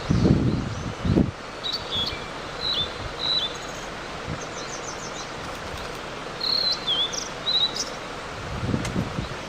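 Blue-and-white flycatcher giving short, high chirps every second or so, with a quick run of notes about halfway through. Low rustling thumps at the start and again near the end.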